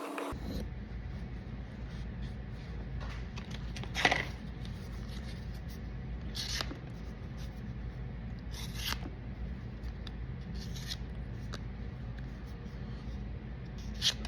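A few short scraping strokes on a pocket knife, spaced a couple of seconds apart, the loudest about four seconds in and another near the end, over a steady low hum.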